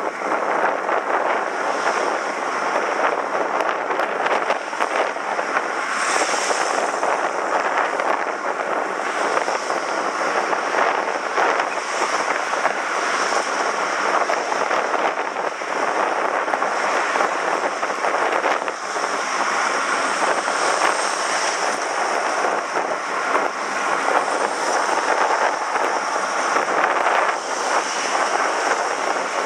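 Steady rush of wind and road noise while riding a bicycle along a road.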